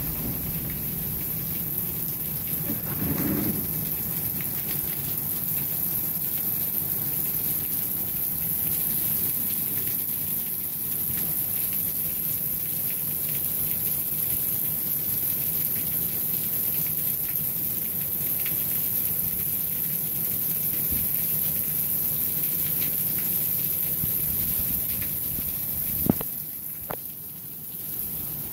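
Steady rain falling on a wet concrete balcony. A single sharp knock comes about two seconds before the end.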